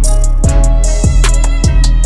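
Background music with a steady beat: deep kick drums that drop in pitch on each hit, crisp hi-hat ticks and sustained synth tones.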